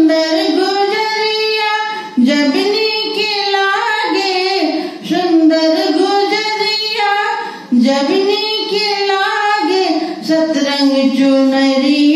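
A woman singing a dadra folk song solo into a handheld microphone, in long drawn-out phrases with gliding pitch, broken by short pauses for breath.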